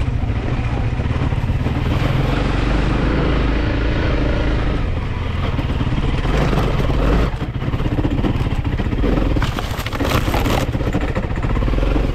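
Single-cylinder dual-sport motorcycle engine running steadily while riding, over a noisy rush; the sound dips briefly about seven seconds in.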